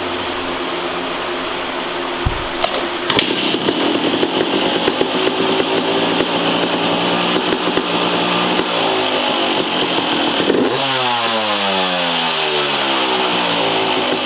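2003 Yamaha YZ250 two-stroke dirt bike engine starting about three seconds in and running, blipped once near ten seconds and falling back, heard through its FMF silencer freshly repacked with fiberglass insulation. A steady fan hum sits under it.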